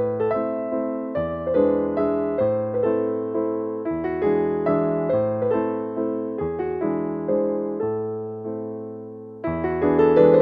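Background music: an electric piano plays a gentle melody over slowly changing chords.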